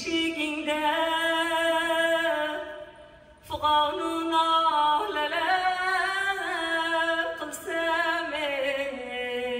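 A woman singing an Uzbek song solo and unaccompanied, holding long notes with wavering melismatic ornaments. There is a short breath pause about three seconds in.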